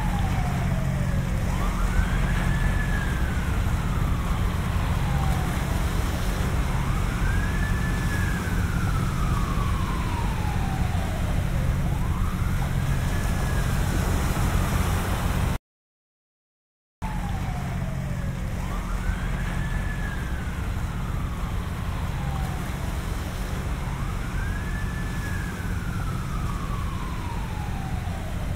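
Distant ambulance siren in a slow wail, each sweep rising quickly and then falling slowly over about five seconds, over a steady low rumble of ocean waves. The sound cuts out completely for about a second and a half midway.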